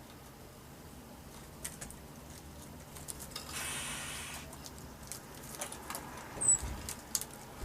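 Small birds moving about: scattered light taps and scratches, a brief rustle partway through, one short high chirp about six seconds in, and a soft low thump right after it.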